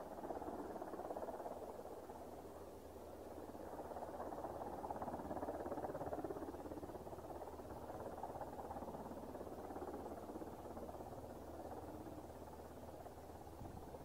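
Mitsubishi F-2 fighter's single F110 turbofan on final approach, heard as a steady rushing jet noise that swells to its loudest midway and then eases a little.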